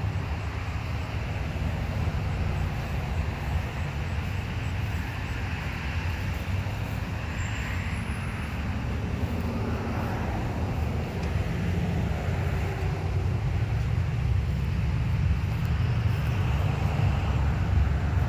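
Steady low rumble of road traffic outdoors, with no single event standing out.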